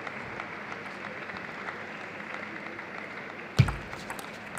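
Steady background noise of the playing hall, then about three and a half seconds in a table tennis serve starts the point: one loud, sharp thud followed by a few light clicks of the ball and bats.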